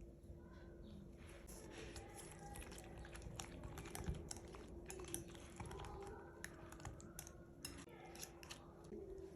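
Faint, irregular clicks and clinks of kitchen utensils and dishes being handled during food preparation, over a steady faint hum.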